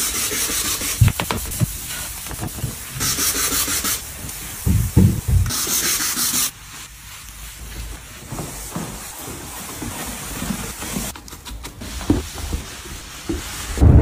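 Cleaning with a trigger spray bottle and a cloth: several hissing bursts of spray, each about a second long, in the first half, then cloth rubbing and wiping over hard surfaces with small knocks.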